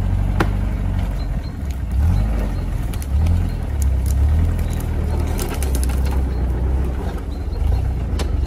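Engine of a GAZ-69 off-roader working under load as it climbs out of deep mud ruts, the engine note swelling in pushes about two, three and four seconds in. A few sharp cracks come around the middle.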